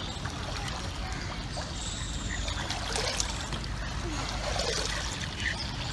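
Swimming-pool water lapping and trickling into the edge's overflow gutter as a person moves in the pool: a steady noisy wash.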